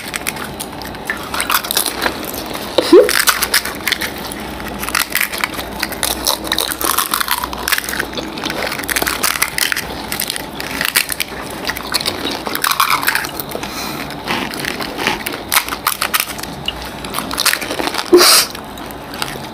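Crisp fuchka (pani puri) shells being cracked open and crunched as two people eat them quickly at once: a dense, irregular crackling and chewing, with one louder burst of noise near the end.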